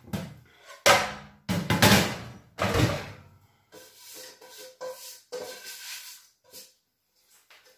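Metal cookware clattering as a frying pan is pulled out: several loud knocks and clanks in the first three seconds, then lighter clinks with a faint metallic ringing.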